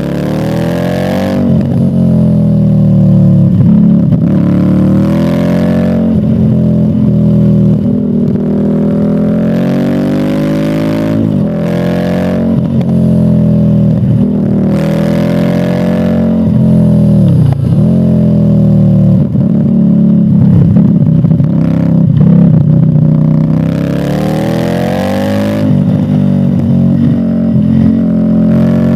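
Yamaha VMAX 1700's V4 engine running under way, its pitch climbing and dropping back again and again as the rider accelerates, shifts and eases off, with a deep drop in revs about two-thirds of the way through.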